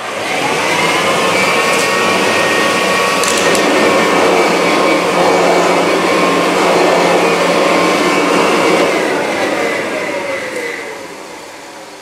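Kirby Dual Sanitronic 50 upright vacuum (1965–67) running: the motor spins up at the start, runs steadily with a whine and a squeak whose cause the owner doesn't know, then winds down from about nine seconds in.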